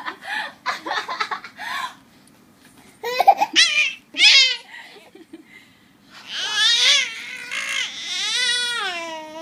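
A baby laughing in short bursts, then letting out two high-pitched squeals. From about six seconds in comes a long squealing call whose pitch wavers up and down.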